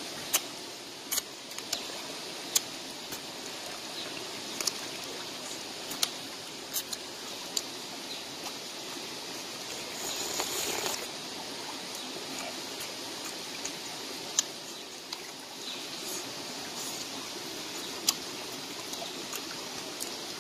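Shallow stream running steadily, with scattered sharp smacks and clicks of eating and, about ten seconds in, a brief loud slurp from a bowl of fish soup.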